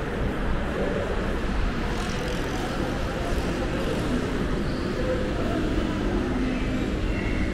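Steady outdoor city background noise: a continuous low rumble with faint voices underneath.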